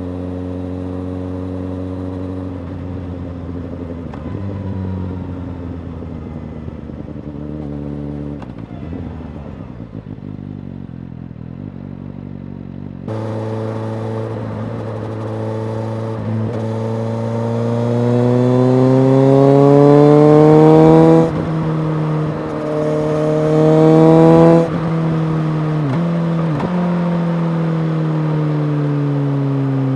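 Suzuki GSX-S750's inline-four engine through a Yoshimura R-77J exhaust, the bike under way: steady running with a few downward steps in pitch at first, then after a sudden jump in loudness about halfway through it accelerates with rising pitch, drops on an upshift, revs up again and shifts once more before settling to a steadier, slowly falling note.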